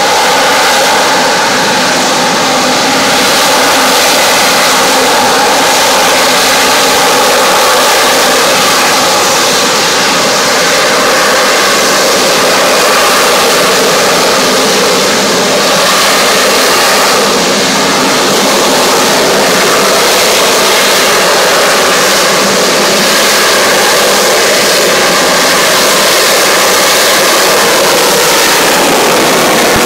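US Marine Corps AV-8B Harrier II's Pegasus turbofan running at high power as the jet holds a hover. A loud, steady jet noise with a faint whine in it that barely changes.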